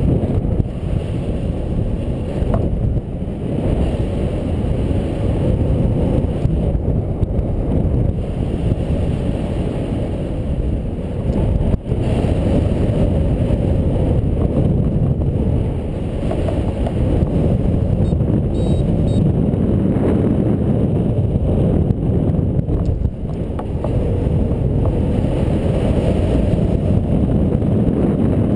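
Wind rushing over the microphone of a camera on a paraglider in flight: a loud, steady low buffeting that swells and dips slightly.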